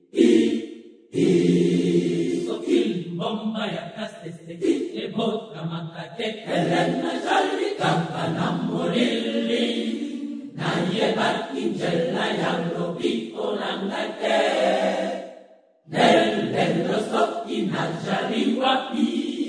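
Choir singing a chant-like church song in unison, breaking off briefly about a second in and again shortly before the end.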